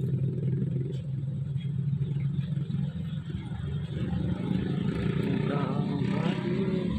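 Heavy truck's diesel engine running with a steady low drone.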